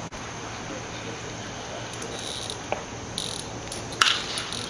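Open-air ballfield background with insects chirping. About four seconds in comes a single sharp crack as the pitch arrives at the plate.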